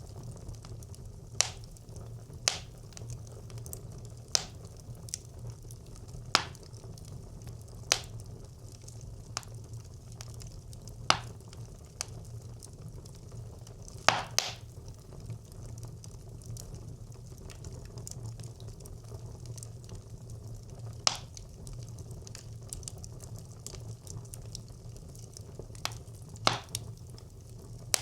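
Wood fire burning in a traditional Nordic brick clay stove: a low steady rumble of flame with sharp crackles and pops every second or two, sparser for several seconds past the middle.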